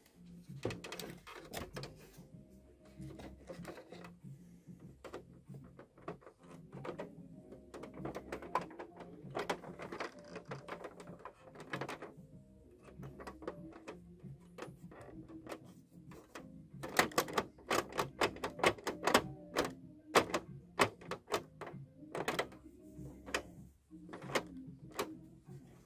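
Irregular flurries of clicks and taps from the hollow plastic body of an Action Man Silver Speeder toy car being handled and pressed by hand, busiest about two-thirds of the way through.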